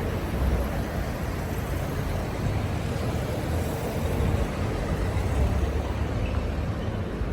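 Steady rumble of passing road traffic, with cars moving along a busy street.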